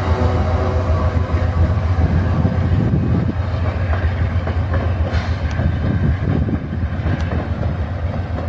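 Stainless-steel coaches of a departing VIA Rail passenger train rolling away on the rails: a steady low rumble of wheels with a few sharp clicks, slowly getting quieter as the train draws off.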